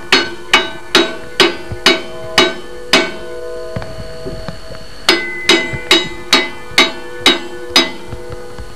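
Hammer blows on the steel of a Bush Hog rotary cutter while a blade is hammered up into its mounting hole, each strike ringing. About two blows a second: seven, a pause of about two seconds, then seven more.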